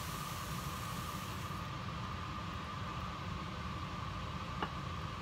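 Milk poured into a hot skillet of sautéed mushrooms and onions, a hiss that cuts off about one and a half seconds in, over a steady background drone. A single light click near the end.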